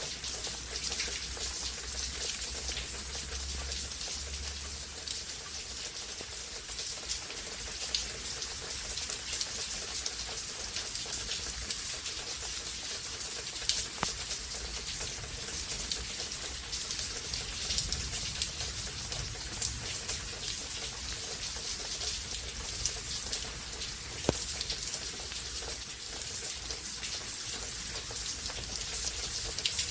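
Steady rainfall during a rain storm, an even hiss with scattered sharper drop hits.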